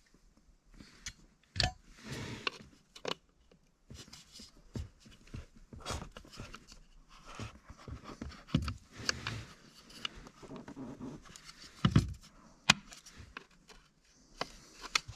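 Irregular clicks, knocks and scrapes of hands working the Porsche 911 (997) accelerator pedal assembly, pressing its release tab and trying to slide the pedal off its mount, with a sharper knock about one and a half seconds in and another about twelve seconds in.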